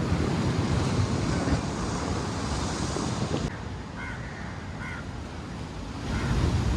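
Ocean surf breaking on a beach with wind buffeting the microphone, a dense rumbling wash that eases a little about halfway through and swells again near the end.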